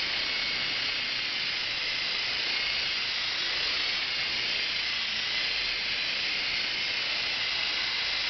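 Small coaxial electric RC helicopter, an AH-64 Apache model, in flight: its electric motors whine steadily over the rush of its rotors, the pitch wavering slightly with the throttle.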